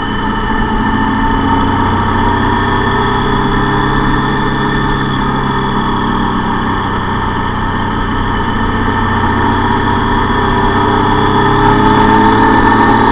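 Vehicle engine running steadily at cruising speed; its pitch and level rise near the end as it speeds up.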